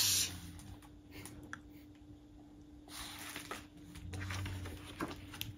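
Soft paper rustling and handling as a hardcover picture book's pages are flipped, with a few quiet brushes of paper about three and four seconds in, over a faint steady hum.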